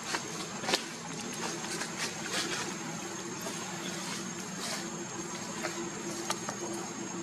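Steady outdoor background noise with a constant high tone and a low hum, broken by a few short crackles.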